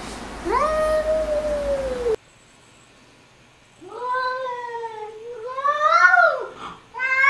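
Domestic cats yowling at each other in a standoff: one long falling yowl, then about a second and a half of quiet, then two more long wavering yowls, with another starting near the end.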